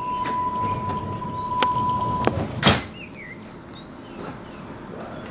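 Hamburg U-Bahn DT3-E train's doors closing. A steady high warning beep sounds with a few clicks and stops a little over two seconds in, then the doors shut with one loud bang.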